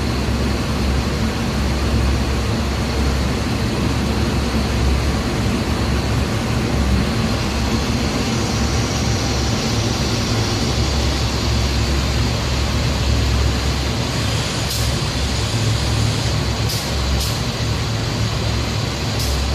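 Glass-processing machinery running: a steady low hum under a constant hiss, from the robot's vacuum gripper, roller conveyors and CNC glass machines working together. A few short, sharp high-pitched sounds come near the end.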